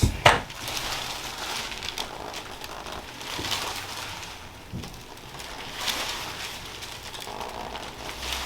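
Rustling and crinkling of cloth and the paper cover on a chiropractic treatment table as the body is shifted into position, with one sharp click just after the start.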